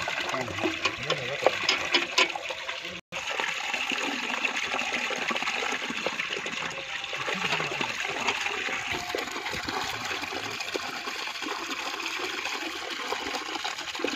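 Water flowing steadily, with a few sharp clicks about two seconds in and a momentary cut-out about three seconds in.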